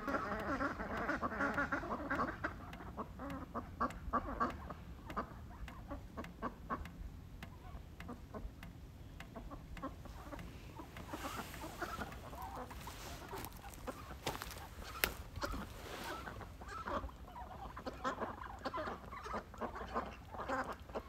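Backyard ducks and other poultry calling: a busy run of quacks and chatter, loudest in the first few seconds.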